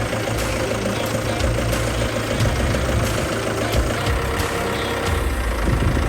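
BMW F22's diesel engine idling steadily after being started, with an even rumble and a fine regular clatter.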